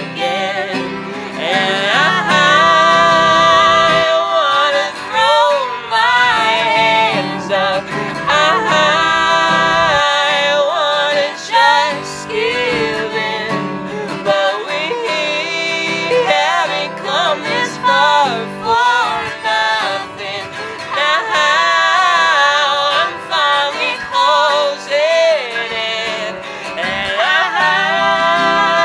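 A man and a woman singing a folk duet in harmony, with an acoustic guitar strummed underneath.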